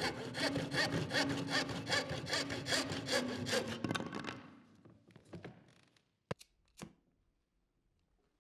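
Wood being sawn: a fast rasping rhythm of about five strokes a second over a steady hum, fading out after about four seconds. Two sharp clicks half a second apart follow a little after the sixth second.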